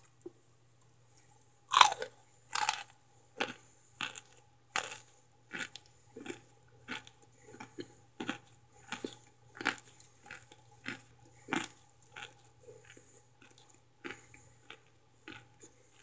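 A person biting into and chewing a hard microwaved cornstarch chunk: crisp crunches, the loudest at the first bite about two seconds in, then chewing crunches about once or twice a second that slowly grow softer.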